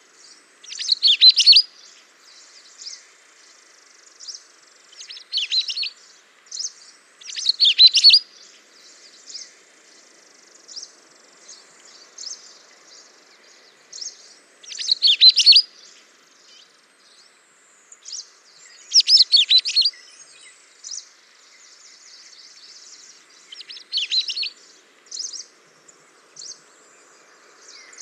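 Songbirds singing and chirping: six loud, high warbled song phrases a few seconds apart, with softer scattered chirps between them.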